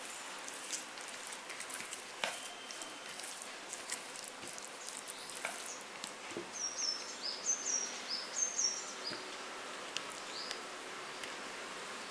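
Fingers working a wet, oily spice paste around a plastic bowl, giving quick wet ticks and squishes. A small bird chirps a quick run of short high notes from about six to nine seconds in, and once more near the end.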